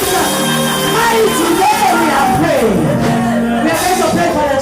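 Background worship music with sustained chords, under many voices praying aloud and calling out.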